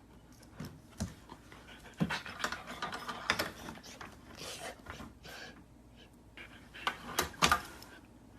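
A dog panting in short, irregular breaths, with louder puffs about two seconds in, at three seconds, and again near the end.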